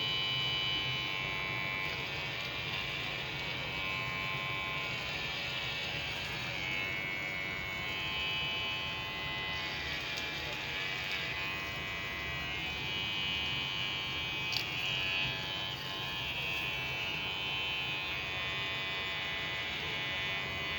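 Electric hair clipper running with a steady buzz, its freshly sharpened blade cutting through hair, with one brief click about two-thirds of the way through.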